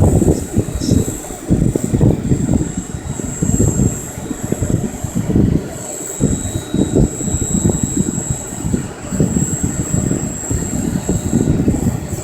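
Heavy wind buffeting the microphone in irregular gusts, over the steady high-pitched whine of a GAUI 550 Hurricane electric RC helicopter in flight.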